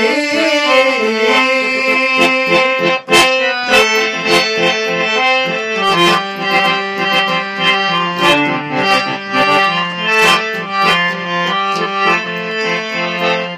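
Instrumental music: a free-reed keyboard instrument plays a melody over sustained chords, with percussion strokes throughout.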